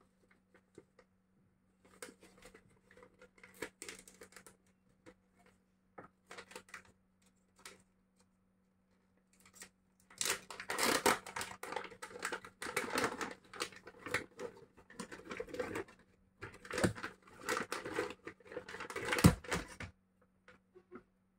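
Plastic dog-treat packet crinkling softly as it is handled, then crackling and rustling loudly from about halfway as it is torn open and the dried rabbit-ear treats are pulled out, with sharp crackles near the end.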